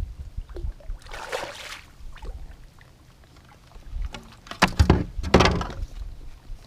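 Water splashing against a kayak about a second in, then a short cluster of knocks on the kayak around five seconds in.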